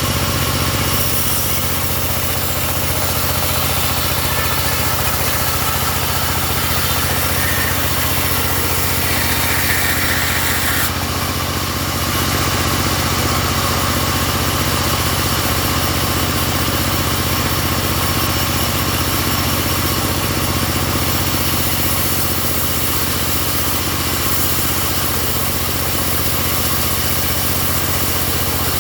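An engine-driven sawmill running steadily with a low mechanical hum and vibration. Its tone shifts about eleven seconds in.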